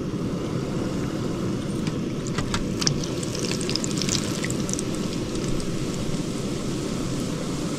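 Crema fritta fritters frying in hot oil: a steady sizzle and bubbling, with a run of sharp crackles from about two to four seconds in.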